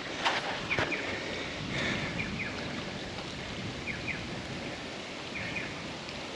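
Outdoor bushland ambience: a steady hiss with short high chirps recurring every second or so, and a couple of sharp clicks in the first second.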